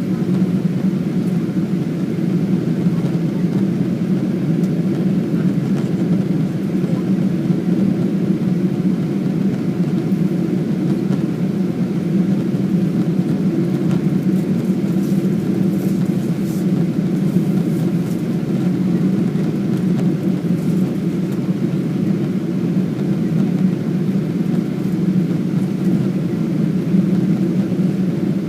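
Boeing 777-200ER cabin noise in flight: the jet engines and rushing air heard from inside the passenger cabin as a steady low drone that does not change.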